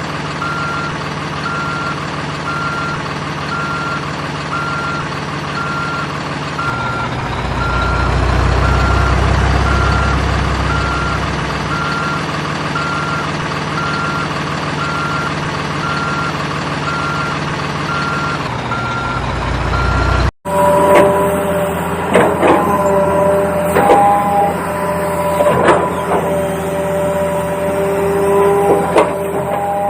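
Simulated truck engine running with a reversing alarm beeping about every 0.7 s; the engine rumbles louder for a few seconds in the middle. About 20 seconds in it cuts off abruptly and gives way to a different mechanical sound of steady tones and clicks.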